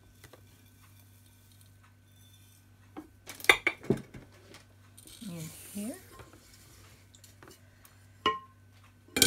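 Porridge oats being added to a large earthenware mixing bowl. About three seconds in there is a loud clatter of knocks, then a soft rushing pour. Near the end two sharp clinks ring briefly against the bowl.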